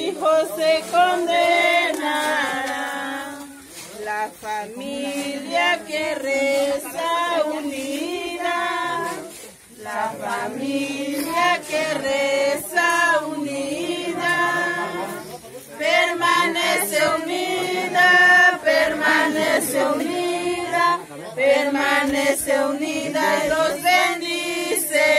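A group of mourners singing a religious song together, unaccompanied, with short breaks between phrases.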